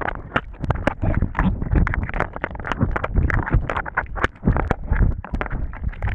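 Underwater sound from a camera held just below the sea surface: muffled water sloshing and bubbling, with many irregular clicks and knocks.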